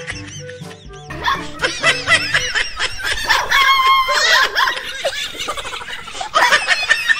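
Laughter over background music, with many short laughs overlapping.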